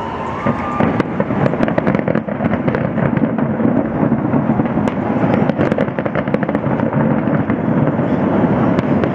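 Fireworks display: a dense, rapid run of aerial shell bangs and crackles over a continuous rumble, thickening about a second in.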